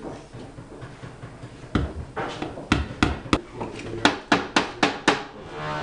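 A series of about ten sharp hammer and mallet taps on wood, starting about two seconds in and coming faster in the second half: a tack hammer driving upholstery tacks, then a wooden mallet tapping a doweled panel together.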